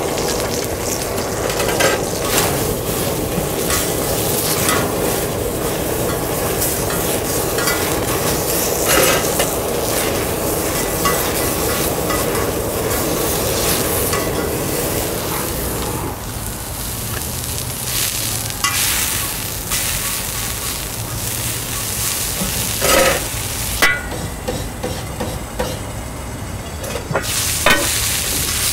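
Steak sizzling on a hot cast-iron cauldron-lid griddle, with metal tongs clicking and scraping against it now and then. The sizzle gets lighter about halfway through.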